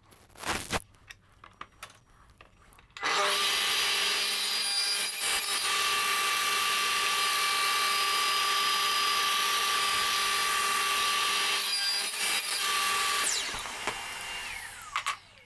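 Electric saw switched on about three seconds in, running steadily as it cuts slots into a mitred wooden corner joint, then switched off about ten seconds later and spinning down with a falling whine. A few light handling knocks come before it starts.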